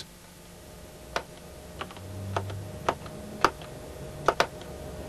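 Scattered keystrokes on a computer keyboard, about eight separate clicks a half second or so apart, over a faint steady hum.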